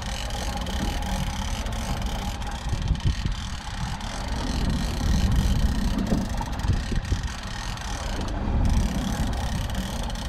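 Wind buffeting the microphone over water washing around a small fishing boat, an uneven low rumble with gusty swells.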